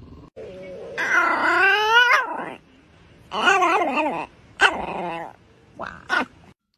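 A dog making a string of drawn-out, wavering howl-like vocalizations: one long call about a second in, then several shorter ones whose pitch slides up and down.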